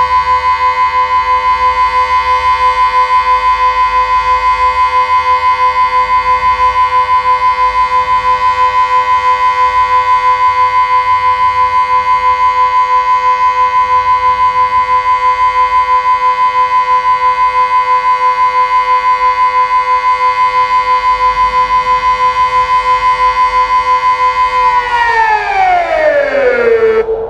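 Delta 6 civil-defence siren sounding the Austrian all-clear (Entwarnung): one loud, steady, unbroken tone. Near the end it begins to wind down in pitch, then drops off sharply.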